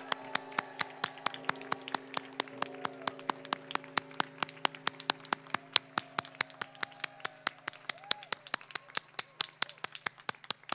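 Applause, led by hands clapping close to the microphone in a steady run of about five claps a second. A faint steady hum sits underneath.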